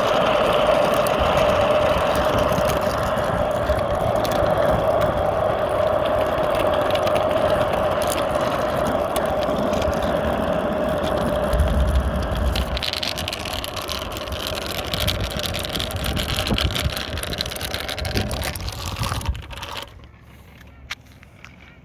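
A small electric ride-on's motor whines at a steady pitch under rumbling wind and rolling noise while riding. The noise drops away sharply near the end as the ride stops.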